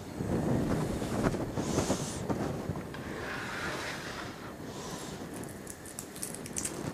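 Garlic cloves being peeled with a silicone tube garlic peeler: a rubbing, rumbling noise for the first couple of seconds, then dry garlic skins crackling near the end as they are pulled off by hand.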